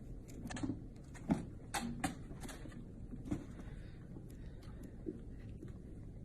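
Cats wrestling: scattered soft thumps and quick scrabbling clicks over a low steady hum, with no yowls or hisses.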